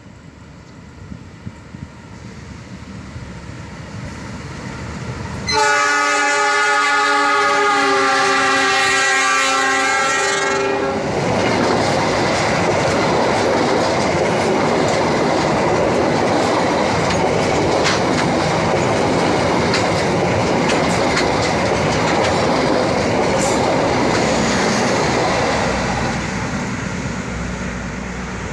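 An Indonesian Railways (KAI) passenger train approaches and sounds a steady horn blast of about five seconds, starting about five seconds in. It then passes close by with a dense rumble and clacking wheels on the rails, fading near the end as it draws away.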